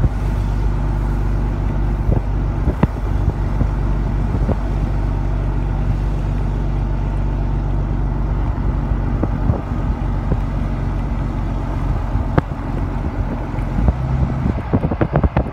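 Vehicle engine running steadily at road speed, with tyre and wind noise. Near the end, gusty wind buffets the microphone.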